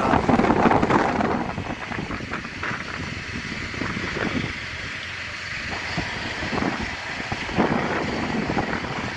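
Strong gusty wind buffeting the microphone, loudest in the first second or so, then easing to an uneven rush with another gust near the end.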